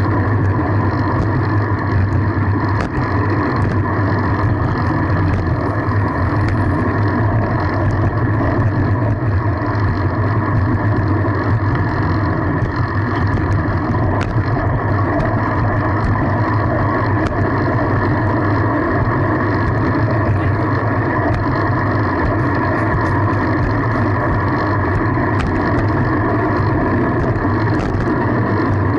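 Steady, loud riding noise of a fixed-gear bicycle in motion, an unbroken rush with no pauses.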